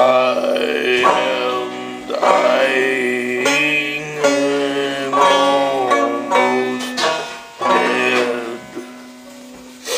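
Banjo music: plucked notes over held low notes, some sliding in pitch.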